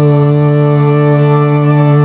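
Devotional music: one long held note, steady in pitch, with many overtones.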